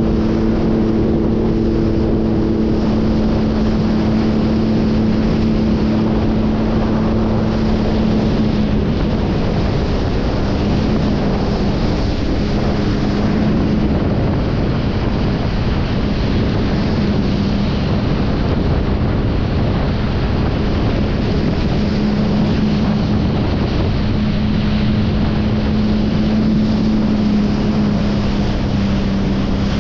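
Jet ski engine running at cruising speed, a steady droning note, mixed with wind buffeting the microphone and water rushing against the hull. The engine note dips slightly about a third of the way in and comes back up near the end.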